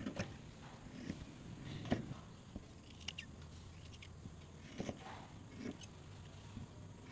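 Scissors snipping through quilted fabric layers (patchwork top, batting and lining), trimming the edges: a handful of short, irregularly spaced cuts.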